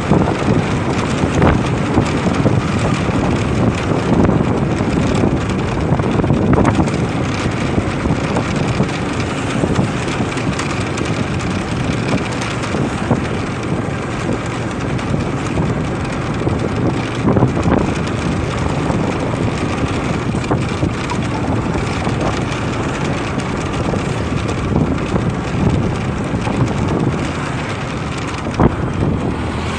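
Motorcycle underway on a road: steady engine and road noise with wind buffeting the microphone.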